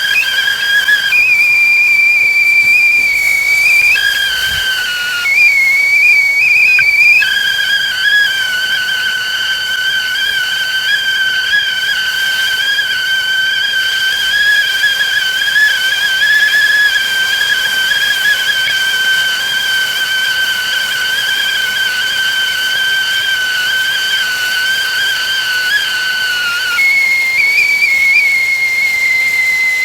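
Whistling tea kettle at the boil: a loud, steady whistle over a hiss of steam. Its pitch flips between a lower and a higher note several times in the first seven seconds, holds the lower note for a long stretch, then jumps to the higher note near the end.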